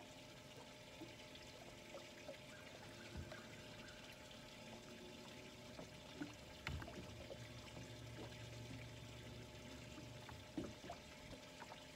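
Faint water lapping against a boat hull, with a few small clicks. A low steady hum comes in a little past halfway and lasts a few seconds.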